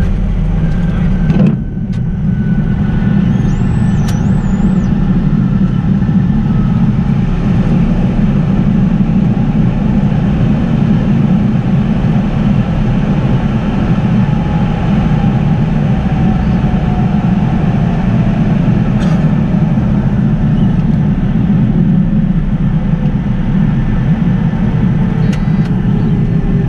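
Steady heavy rumble in a jet's cockpit during the landing roll on a snowy runway: engine and wheel noise, with a click and a brief dip about a second and a half in. A faint whine slowly falls in pitch through the second half as the aircraft slows.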